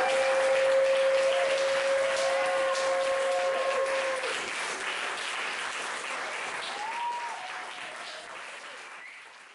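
Audience applauding after a live acoustic song, with a long held note over the first four seconds. The applause fades out near the end.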